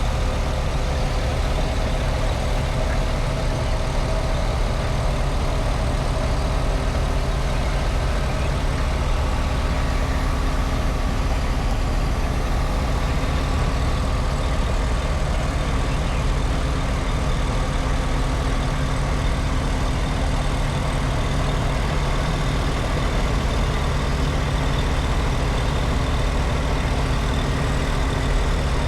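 Heavy vehicle engine running steadily at a constant speed, a low unchanging hum with no revving or sudden noises.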